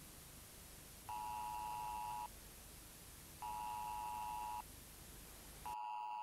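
Three long electronic beeps, each a steady tone lasting a little over a second and a couple of seconds apart, over constant tape hiss. The hiss cuts out during the third beep. It is an attention tone ahead of a broadcast announcement.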